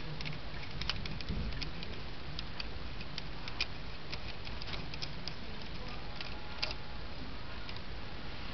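Irregular light clicks and taps of small metal parts being handled against a Turbo 200-4R automatic transmission case, over a steady low hum.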